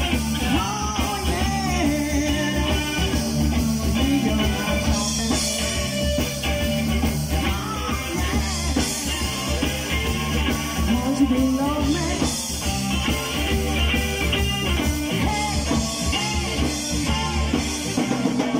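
Live blues-rock band playing: drum kit and electric guitar, with bending lead lines over a steady bass and drums. The band stops at the very end.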